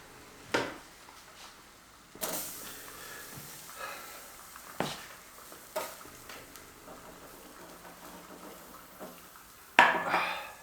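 Potato being handled and laid on a hot stove top: a few sharp knocks and clicks, a faint sizzling hiss from about two seconds in, and a louder scraping rustle near the end.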